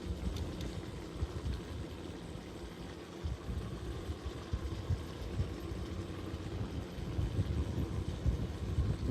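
A vehicle engine running, with a continuous, uneven low rumble.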